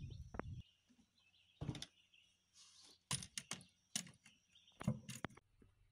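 DeWalt cordless nail gun firing nails up into wooden soffit boards: a series of short, sharp shots, mostly in the second half, with birds chirping faintly.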